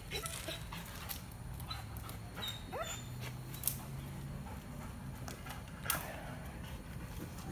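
Scattered rustles and clicks with two sharp knocks, the second about six seconds in as a dog noses into a fallen leafy branch, and one short rising squeal a little before the middle.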